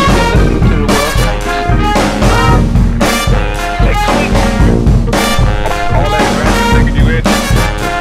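Upbeat background music led by brass instruments over a steady drum beat.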